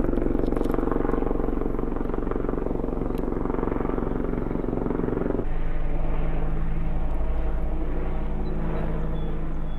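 A steady low mechanical drone, like a running motor, whose pitch pattern shifts abruptly about five and a half seconds in.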